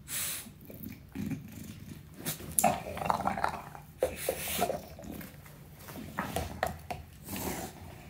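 English bulldog making growling noises in irregular short bursts while playing with rubber chew toys in its mouth.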